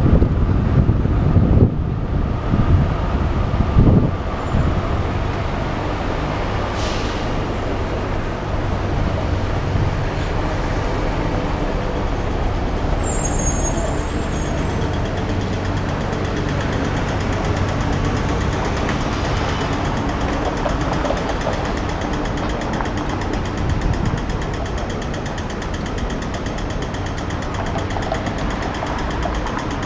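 City street traffic heard from a bicycle: wind buffeting the microphone for the first few seconds while riding, then a steady hum of idling and passing cars and vans at an intersection.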